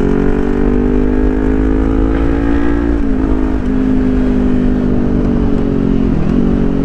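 Kawasaki Ninja 400's parallel-twin engine running at a steady cruise under way. Its pitch dips briefly and recovers twice, about three seconds apart.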